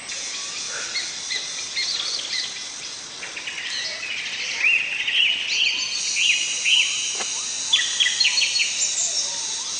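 Forest birds calling: a run of short, repeated chirping notes from about halfway through. Under them a steady high-pitched insect drone, which grows stronger around the middle.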